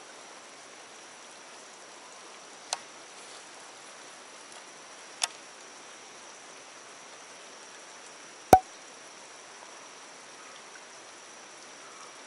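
Three sharp, short clicks, a couple of seconds apart, with the third much the loudest, over a steady faint hiss with a thin high whine.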